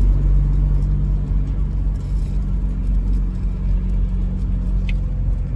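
UAZ-452 van's engine running steadily while driving along, heard from inside the cab as an even low drone.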